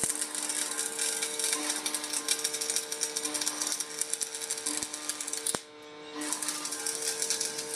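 Arc welding: the electrode's arc crackling and sputtering against the steel, over a steady mains hum. The arc breaks off about five and a half seconds in and strikes again half a second later.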